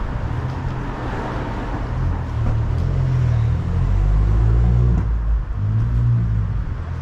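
A motor vehicle driving past on a city street, its engine rumble swelling to a peak about four to five seconds in and then dropping away, over steady traffic noise.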